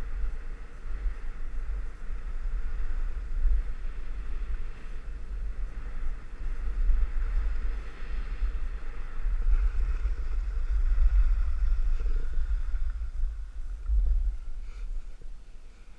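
Wind buffeting the microphone of a camera carried down a ski slope, a loud uneven low rumble, over a fainter steady hiss of sliding on groomed snow.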